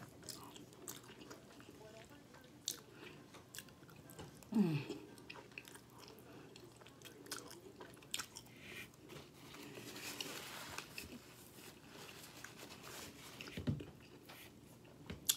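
Close-miked chewing of chicken Alfredo pasta, with many small wet mouth clicks and smacks. A short falling hum about four and a half seconds in, and a breathy sound lasting about a second around ten seconds in.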